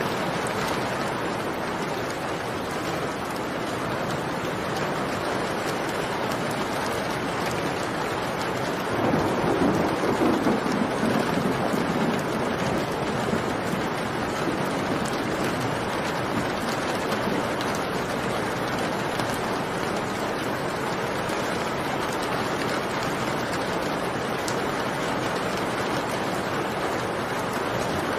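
Steady rain falling, with a rumble of thunder that swells for a few seconds about a third of the way through.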